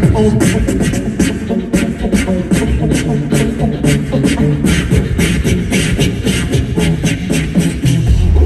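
Four-man beatbox group performing live, amplified through the stage sound system: a quick beat of vocal-percussion clicks and snares, about four a second, over hummed bass lines. A heavy deep bass comes in near the end.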